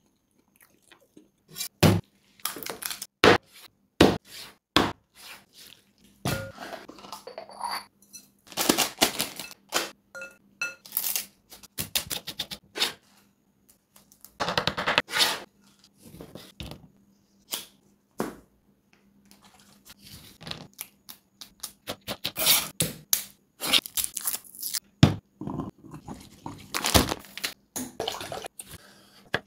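A run of close-up food-preparation sounds in quick succession: sharp clicks, knocks and crunches, with fresh mint leaves torn by hand around the middle and water poured into a glass bowl of rice near the end.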